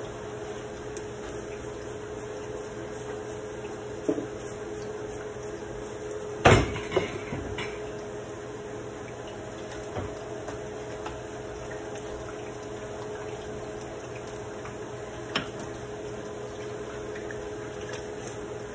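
A few clinks and knocks of a metal utensil against a frying pan, the loudest about six and a half seconds in and a few smaller ones after it, over the steady low hiss of plantain slices frying in oil.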